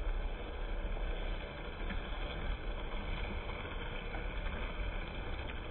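Model trains running on the layout: a steady whirr and rumble of small electric motors and metal wheels on the track, with a few faint clicks.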